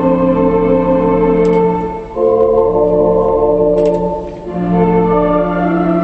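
Theatre organ playing held chords with a melody over them. The sound dips briefly at two breaks between phrases, about two and four seconds in.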